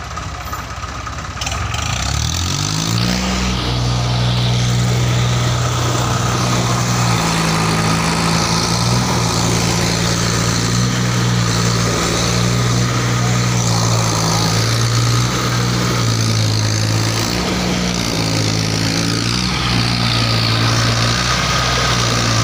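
Tractor diesel engines revving up about two seconds in and then held at high revs under heavy load while towing a mud-stuck tractor free, the revs dipping and climbing again a few times.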